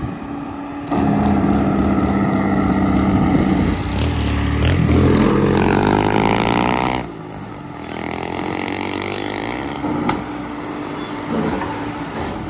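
Heavy dump truck's diesel engine labouring steadily up a steep grade. About five seconds in, a motorcycle passes close by, its engine note sweeping in pitch. The sound drops abruptly about seven seconds in, and the truck engine carries on more quietly.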